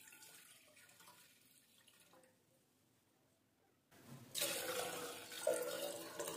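Milk poured into a stainless steel pot, a soft steady trickle for the first two seconds or so. About four seconds in, the water from soaking rice and dal is poured in from a glass bowl: a much louder splashing pour into the milk.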